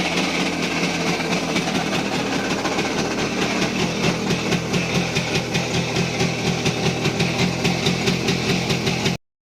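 Voskhod 3M motorcycle's single-cylinder two-stroke engine running with a loud, rhythmic pulsing of about two to three beats a second through the second half, then cutting off suddenly near the end. The engine has a heavy knock at idle and at high revs, which the owner suspects comes from the connecting rod and wrist pin or a failing crankshaft.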